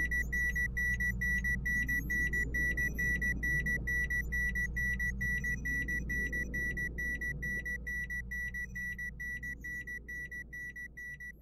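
Alarm-clock type electronic beeping: one high tone pulsing rapidly, several beeps a second, over a steady low hum, slowly fading.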